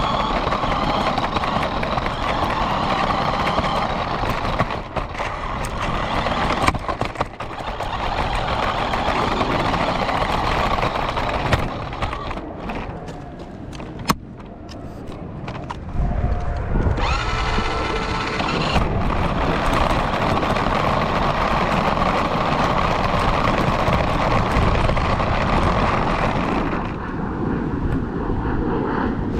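Radio-controlled car driving, its motor and wheels on the road heard from a camera mounted on the car. It goes quieter for a few seconds around the middle, with one sharp click, then a heavier rumble before the steady running sound returns.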